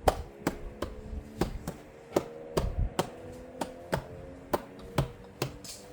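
Plastic interior trim covers being pressed and snapped into place, a string of sharp clicks and taps about two or three a second, over a faint steady hum.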